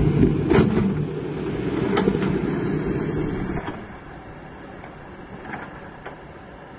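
Kobelco SK200 hydraulic excavator's diesel engine running with a steady low hum and a few sharp knocks. About three and a half seconds in it drops sharply to a much quieter, even idle.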